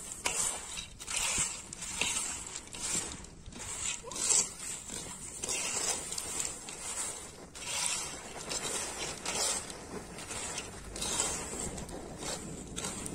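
Peanuts in their shells being stirred through hot sand in a wide iron pan with a wire-mesh skimmer: gritty scraping and rustling of shells and sand against the metal, in repeated strokes.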